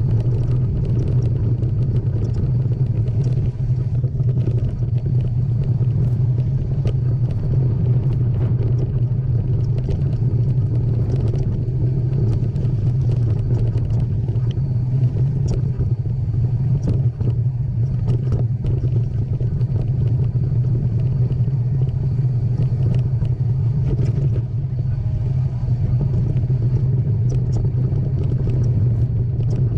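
Steady, loud low rumble of motion noise, with scattered light clicks and rattles over it.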